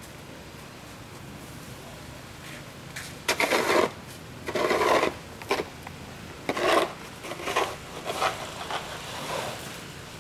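Snow shovel blade scraping and pushing snow across brick paving: quiet at first, then a series of about six short scrapes, each around half a second long, starting about three seconds in.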